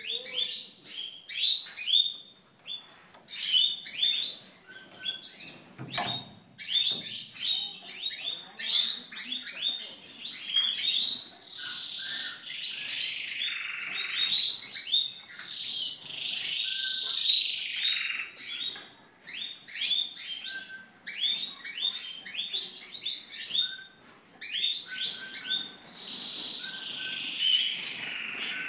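A flock of small finches in an aviary, chirping and twittering continuously: many quick overlapping chirps, with longer warbling song phrases in the middle and near the end. A single sharp click comes about six seconds in.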